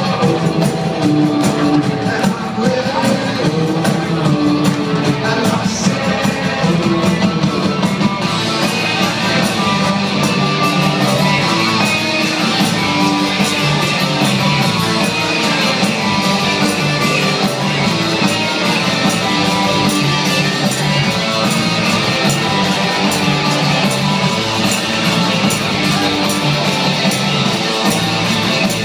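Rock band playing live, led by electric guitars with a steady drum beat. About eight seconds in, the sound grows fuller and brighter.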